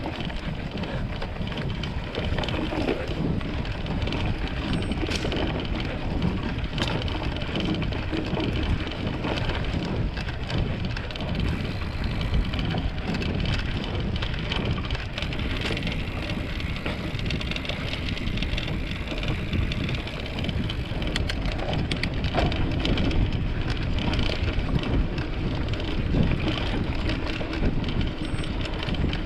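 Mountain bike ridden along a trail, heard from the rider's own camera: steady wind noise on the microphone over the rumble of the tyres, with scattered short clicks and knocks from the bike.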